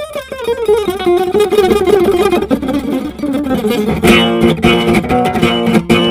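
Acoustic guitar played at high speed: quick runs of single notes, then from about four seconds in, rapid picking of fuller chords.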